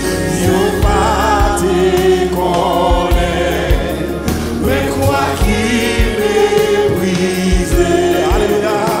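Gospel worship song sung in Haitian Creole by a lead singer and backing vocalists, over instruments with sustained low notes and a steady low beat.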